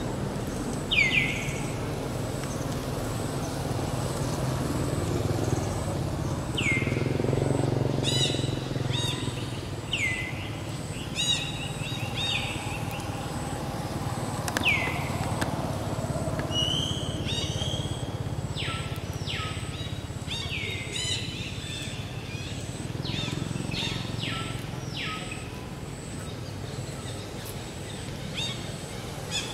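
Birds calling: short high chirps that sweep downward, a few seconds apart at first and crowding together in the second half, over a low steady rumble of road traffic.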